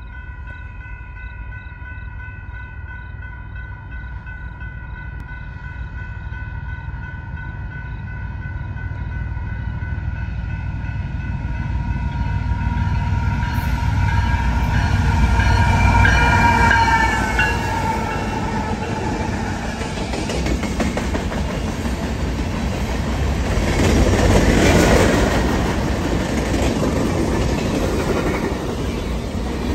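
A Union Pacific grain train approaching and passing close by. The diesel locomotives grow louder to a peak about halfway through, then the covered hopper cars roll past with wheel clatter on the rails. A steady high ringing warning tone sounds through the first half and fades once the locomotives are by.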